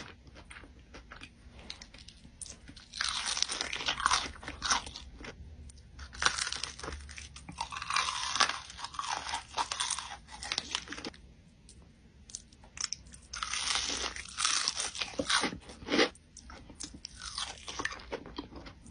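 A person biting and chewing crispy breaded fried food. Several-second bursts of crunching alternate with quieter chewing.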